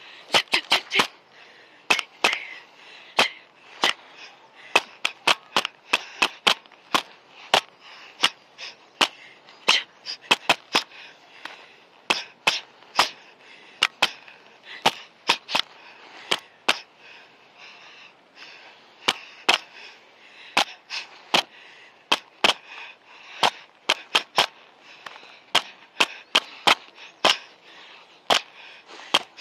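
Boxing gloves landing in quick, irregular flurries of sharp slaps: punches and counters smacking against gloves during sparring, often two or three in rapid succession.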